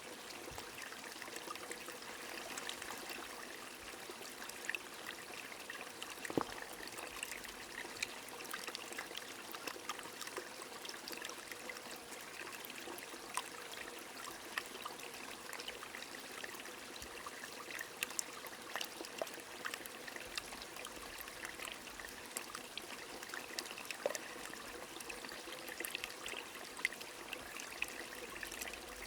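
Steady rain falling with a stream running, full of scattered drip and patter ticks.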